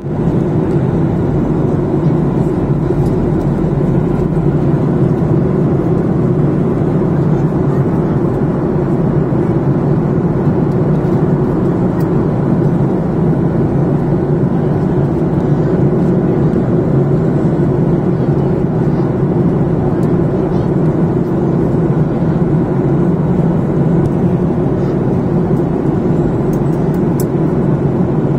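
Steady cabin noise of a jet airliner in cruise: a constant rush of airflow and a low engine drone, heard from inside the cabin at a window seat.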